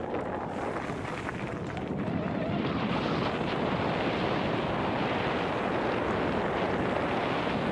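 Wind rushing over a helmet-mounted Garmin VIRB 360 action camera's microphone as a mountain bike rides fast down a dirt forest trail, a steady noisy rush that grows louder about two to three seconds in.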